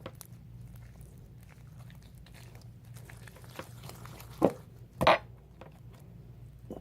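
Sticky borax slime being kneaded and pulled by hand, giving soft irregular squelching and sticky clicking, with two louder short squelches or knocks about four and a half and five seconds in. A steady low hum runs underneath.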